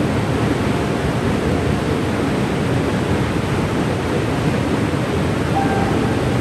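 Cane River Falls waterfall rushing: a steady, even roar of falling water.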